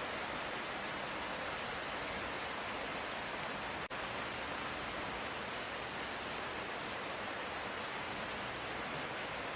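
Steady light rain, an even hiss with no thunder, broken by a momentary dropout nearly four seconds in.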